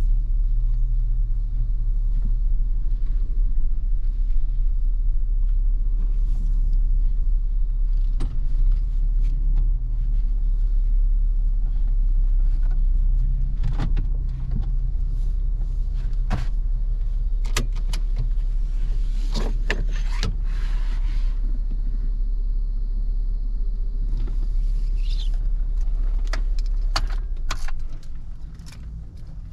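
2018 Jeep Wrangler Sahara's V6 idling, heard from inside the cabin, with scattered clicks and knocks from interior controls being handled. The engine is switched off near the end and the hum dies away.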